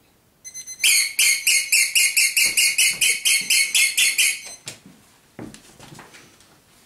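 A rapid, even run of loud, high-pitched squeaks, about five a second for nearly four seconds, from a yellow squeaky rubber toy. Faint knocks follow.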